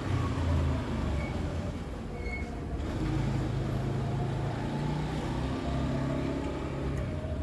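A low engine hum with a steady pitch that shifts up and down a few times, like a motor running nearby.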